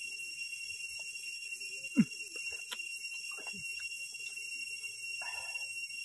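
Steady high-pitched drone of forest insects, with a man's short 'mm' about two seconds in as he eats, and a smaller mouth sound a moment later.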